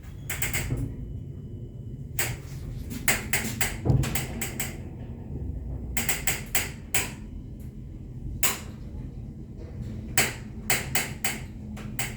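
Passenger lift car travelling, a steady low hum broken by irregular clusters of sharp clicks and knocks, a rattly ride that doesn't sound good.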